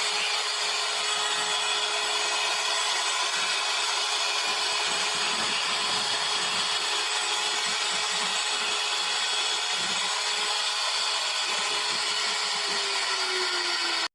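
CNC router spindle cutting into wood: a steady whine with the hiss of the bit working the wood. The whine drops slightly in pitch near the end.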